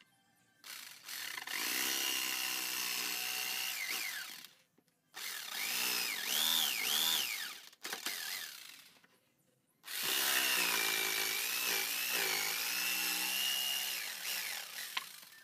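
Maktec electric jigsaw cutting a meranti board: the motor's whine with the blade rasping through the wood, in three runs of a few seconds each with short pauses between. The pitch dips and wavers as the blade bites.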